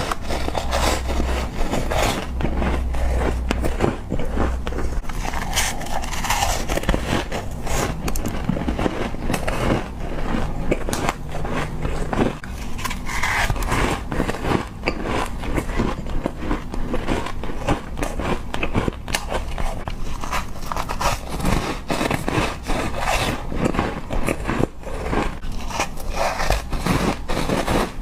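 Ice being bitten and chewed close up: a steady run of sharp cracking and crunching, many crunches a second.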